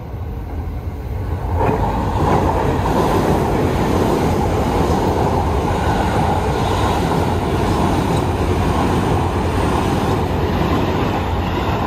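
A Keio Line semi-express train passing through the station at speed on the through track without stopping: a loud, steady rumble of wheels on rails that sets in about two seconds in and holds.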